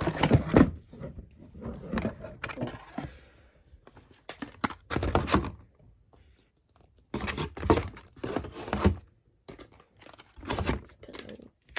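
A cardboard mailer box and cosmetic packaging being handled while makeup products are put back into the box: irregular bursts of rustling, crinkling and light knocks, with quiet gaps between them.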